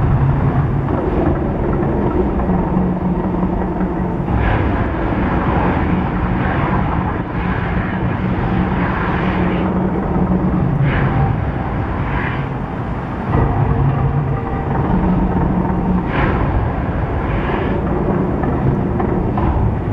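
The Mirage volcano show's gas fire effects and soundtrack: a continuous deep rumble with sudden bursts every second or few as fireballs flare across the lagoon.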